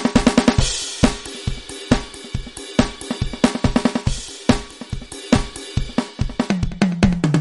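NUX DP-2000 digital percussion pad played with drumsticks, sounding its drum-kit voices with cymbals. A quick run of hits opens it, then a steady beat follows, and low pitched notes join near the end.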